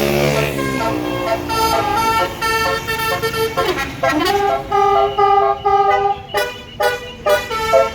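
Basuri telolet bus air horn playing a fast melody of short stepped notes, with a quick swooping glide about four seconds in.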